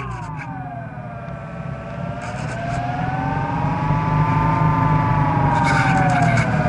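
Multiplex EasyStar II RC foam glider in flight, heard from its onboard camera, with the electric motor throttled back. A whine dips in pitch and rises again, and the rush of air over the airframe grows louder from about two seconds in as the plane noses down.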